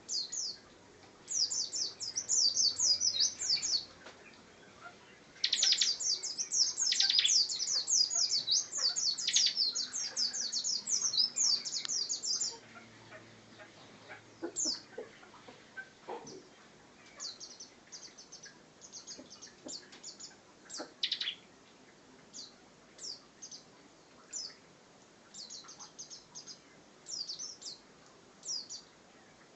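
Bar-winged prinia (ciblek) singing in two long runs of rapid, high, chattering notes, the 'ngebren' burst song prized by bird keepers, then only short scattered chirps through the second half.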